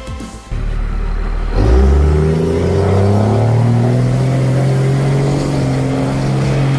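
Engine revving up about a second and a half in, its pitch climbing, then holding steady at high speed.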